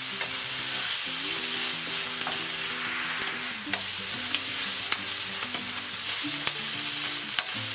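Chopped onion and garlic sizzling in oil in a frying pan as they are stirred with a metal spoon, with occasional sharp clicks of the spoon against the pan. The onion is being sautéed until soft and lightly browned.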